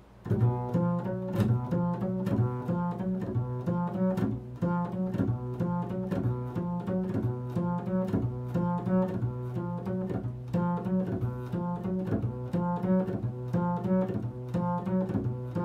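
Double bass played pizzicato: a steady run of plucked low notes, about four a second, in an improvised repeating figure.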